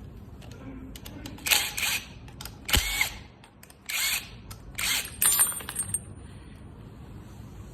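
Tools and metal parts being handled during dirt-bike carburetor work: about five short bursts of clicking and rattling in the middle few seconds.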